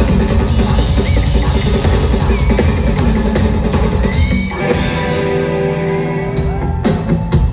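Rock drum kit played live through a concert PA in a busy drum solo. About four and a half seconds in, the drumming thins and held notes from the band come in.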